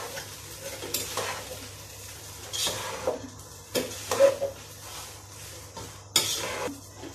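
Wooden spatula stirring and tossing fried rice in a nonstick pot: several brief scraping strokes against the pot, the loudest about four seconds in, over a faint sizzle of the rice frying.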